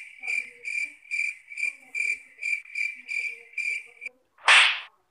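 Cricket-like chirping: a steady high trill pulsing two or three times a second, which stops about four seconds in. A short, loud burst of noise follows near the end.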